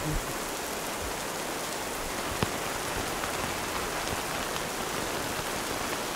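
Heavy rain falling steadily on a tent, heard from inside, with one sharp tap about two and a half seconds in.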